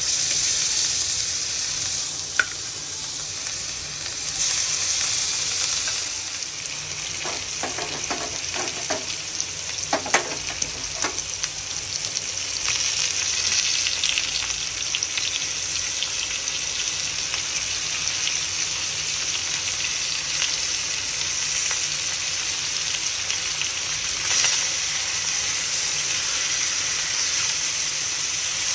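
Marinated rohu fish steaks sizzling as they shallow-fry in hot oil on a flat iron pan, the sizzle starting suddenly as the fish goes in. A metal utensil clinks and scrapes against the pan several times, about seven to eleven seconds in.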